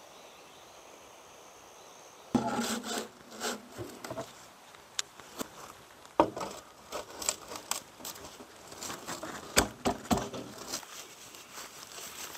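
Faint outdoor background with a thin, steady high tone for about two seconds. Then comes a run of irregular knocks, clicks and rustling from a man working by hand on dry, litter-covered ground, with several sharp single knocks.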